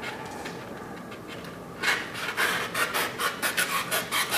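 A hand tool scraping and shaving a carving-foam fish form in quick repeated strokes, about four a second, starting about two seconds in.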